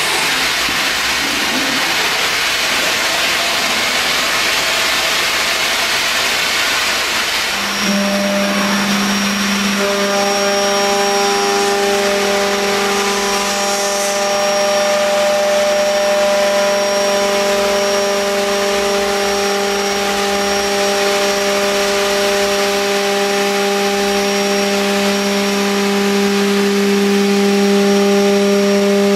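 CNC router spindle machining a sheet panel. For the first several seconds there is only an even hiss of air and machine noise; about eight seconds in, a steady low hum with a thin high whine sets in and holds as the cutter works through the panel.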